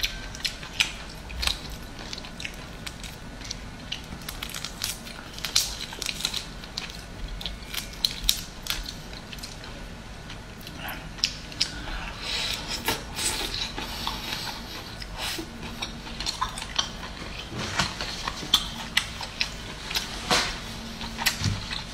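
Cooked whole prawns being peeled by hand and eaten close to the microphone: shells crackling and snapping in many irregular sharp clicks, with chewing between them.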